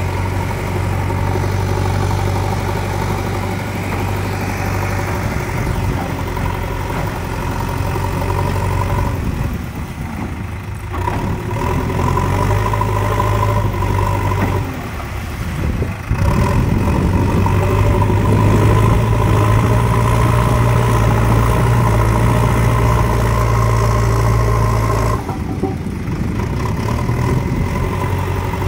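JCB 3DX backhoe loader's diesel engine running as the machine works in mud, its note dipping and picking up again a few times, running harder for several seconds past the middle and then easing off suddenly near the end.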